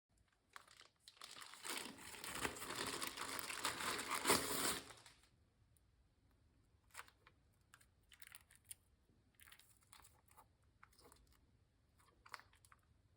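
Chilkey ND75 mechanical keyboard with lubed Gateron Smoothie linear switches, a PC plate and PBT keycaps being typed on: a fast, dense flurry of keystrokes for about four seconds, then scattered single keystrokes.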